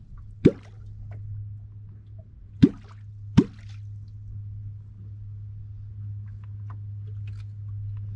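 A wooden catfish call (kwok) is struck into the water to draw wels catfish. It gives three sharp, deep plops: one about half a second in, then two close together around three seconds in. A steady low hum runs underneath.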